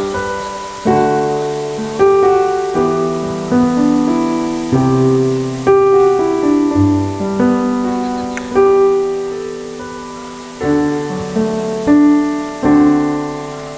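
Slow, gentle piano music: a new chord is struck about once a second and each one rings and fades away.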